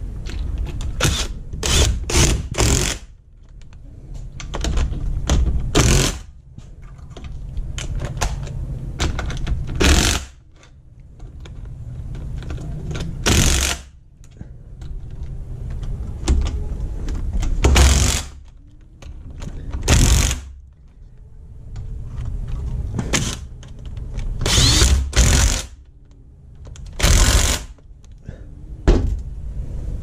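Cordless power driver with a socket running in the bolts of a manual transmission case, over a dozen short bursts with pauses between them as each bolt is driven down.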